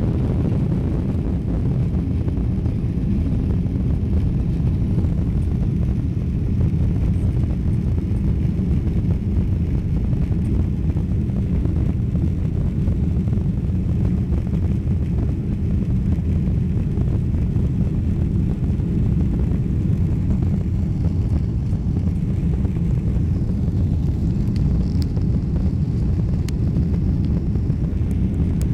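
Steady low rumble of jet engines and rushing air inside an airliner cabin during the climb after takeoff, with a few faint ticks near the end.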